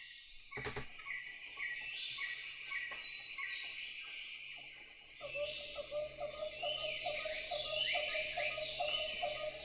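Recorded tropical rainforest ambience played back through a speaker: a dense chorus of birds chirping and whistling with insects, joined about five seconds in by a rapid, repeated lower call. A single sharp knock sounds about half a second in.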